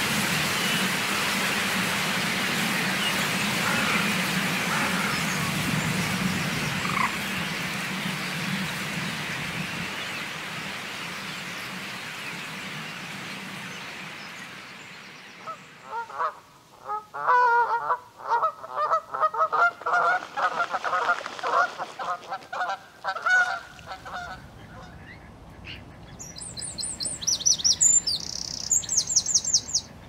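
Rushing wing noise and chatter of a vast starling murmuration overhead, a steady wash that slowly fades. Then waterfowl honking and calling in quick repeated bursts. Near the end comes a run of short, high-pitched chirps from a small bird.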